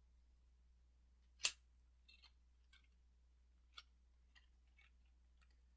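Near silence, broken by one sharp click about one and a half seconds in and a few faint ticks after it.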